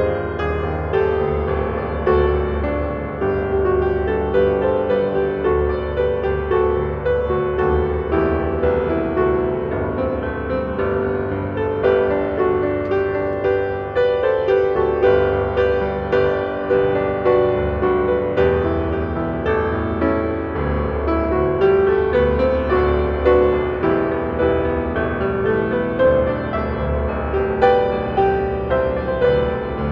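Piano playing a prelude: a steady stream of pitched notes.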